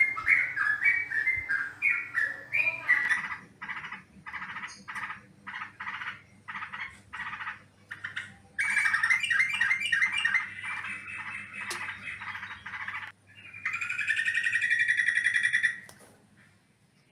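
Yellow-vented bulbul (trucukan) calling: a quick run of bubbly notes, then short notes about twice a second, a fast chattering stretch, and a longer harsh burbling call that stops about a second before the end.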